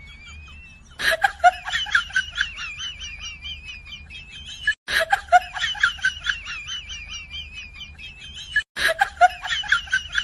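A high-pitched chirping, cackling sound effect repeats three times, each pass starting loudly and ending in an abrupt cut, over a low steady hum.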